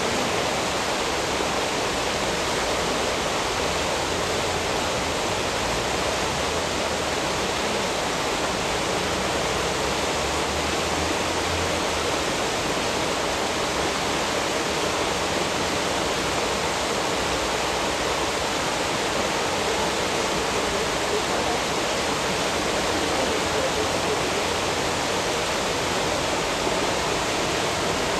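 Fast-flowing water rushing and churning in a steady, unbroken roar of noise.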